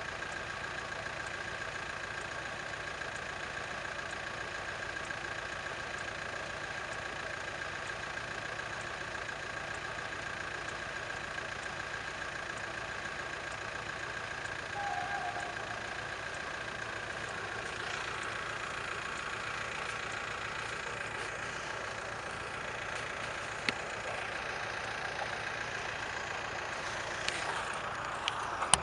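Diesel engines of a pair of SU42 locomotives hauling a passenger train through a station without stopping, a steady engine drone as the train approaches. A rush of louder noise comes near the end as it passes close.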